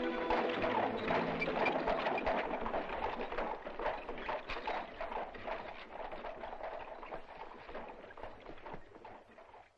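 Horse-drawn carriage passing: hooves clip-clopping in a quick, steady rhythm, growing fainter until it has almost died away at the end.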